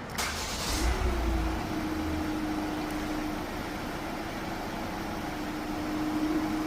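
Renault Master van's diesel engine being started by the remote-start system. A short rush of noise comes first, then the engine catches about a second in with a brief rise in pitch and settles into a steady idle hum.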